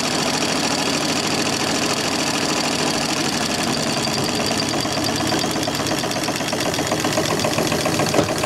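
Live-steam scale model logging donkey's twin steam engines running steadily under load, with rapid, even exhaust beats, as a spool drum winds in the wire cable hauling a log.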